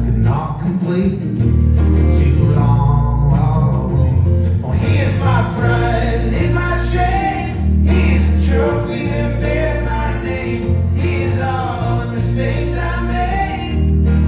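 Folk-rock band playing live at concert volume, a male voice singing over guitar and a heavy, pulsing bass.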